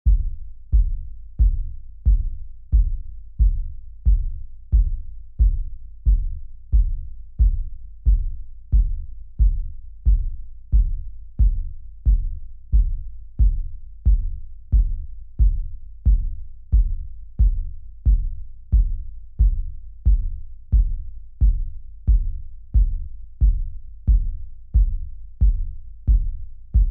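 Dark kick drum sample struck over and over at an even pace, about three hits every two seconds. Each hit is a deep, low thud that dies away quickly.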